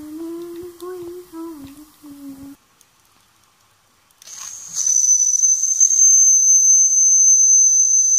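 Someone hums a wavering tune for the first couple of seconds. Then, about four seconds in, the steam whistle on the Mamod SE3's hot boiler is opened by hand and sounds one loud, steady, high-pitched note for about four seconds.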